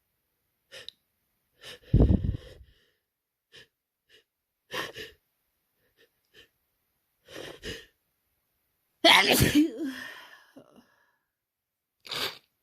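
A person with a head cold sneezing over and over: several messy sneezes with short gasping breaths between them, the loudest about two seconds in and about nine seconds in.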